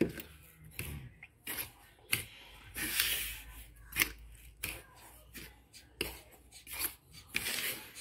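A metal fork stirring dry flour and sugar in a bowl: short scraping swishes with scattered clicks of the fork against the bowl.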